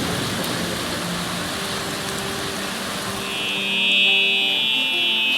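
Steady hiss of a heavy rain shower that thins out as background music comes in about a third of the way through. A bright, high melody line joins the music a little past halfway and becomes the loudest sound.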